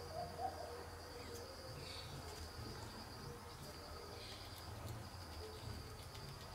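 A steady, high-pitched insect trill, broken by a couple of short pauses, over a low outdoor rumble. A brief louder sound stands out about half a second in.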